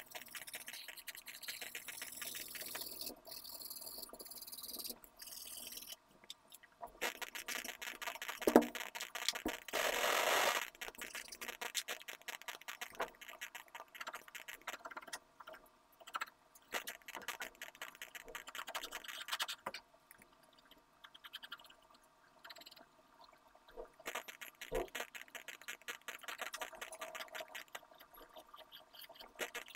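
Pencil scratching on drawing paper in quick, irregular shading strokes. A sharp knock about eight seconds in is the loudest sound, followed by a brief rushing noise.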